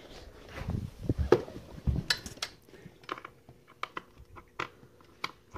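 Handling noise from an animated dancing skeleton prop: a few low bumps, then a scatter of sharp plastic clicks and taps as it is handled and set up.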